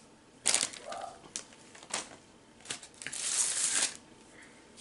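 Plastic candy wrapping crinkling as Peeps are handled: a few short rustles, then a longer crinkle about three seconds in.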